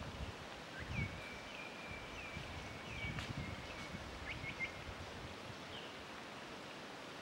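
A faint bird call: a thin, steady whistle lasting a few seconds, broken by short rising chirps, over an outdoor background with low gusty rumbles of wind on the microphone.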